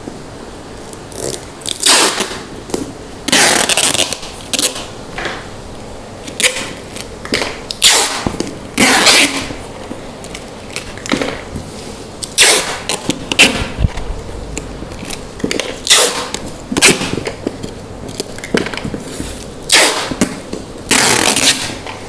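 Clear packing tape being pulled off the roll in a string of loud rasping strips, about a dozen of them, each a second or less, as a cardboard box is sealed.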